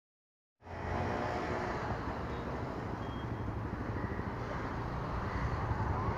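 Steady outdoor rumble and hiss beside an open railway line, cutting in abruptly about half a second in and slowly growing louder.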